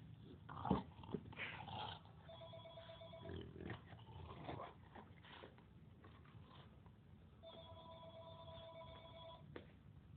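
A telephone ringing twice, a short ring about two seconds in and a longer one about five seconds later. A few short thumps and rustles come in the first two seconds.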